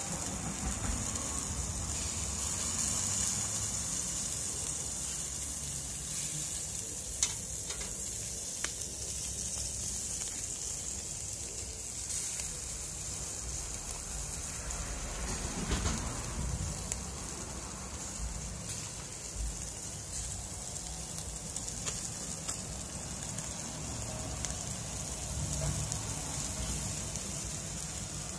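Yellow croaker marinated in sambal sizzling in a wire grilling basket over charcoal: a steady, high hiss with a low rumble beneath it. Two sharp pops come about seven and nine seconds in.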